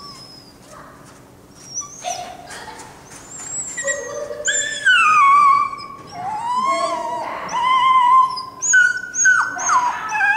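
A dog whining and yelping in a run of high calls that slide up and down, starting about two seconds in and loudest around the middle.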